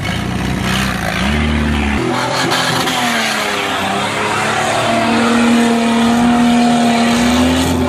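Fuel-injected Nissan Patrol Safari engine revving hard under load as it climbs a sand dune with its wheels spinning in the sand. The revs step up about a second in, sag briefly, then climb and hold high near the end.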